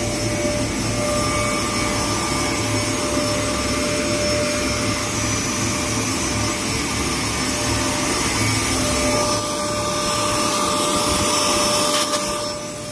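CWF series air-classifying ultrafine powder grinder running: a steady rush of motor and air-flow noise with a constant high whine over it. A single click near the end.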